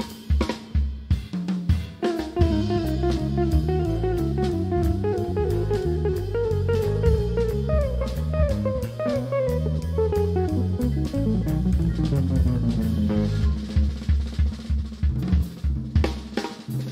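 Live jazz band playing: drum fills at the start, then from about two seconds in an electric guitar plays a fast melodic line that winds down in pitch over electric bass and drums. Drum fills come back near the end.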